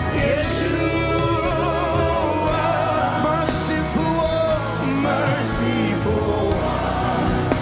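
Live gospel worship music: sung vocals with a wavering melody over steady band accompaniment.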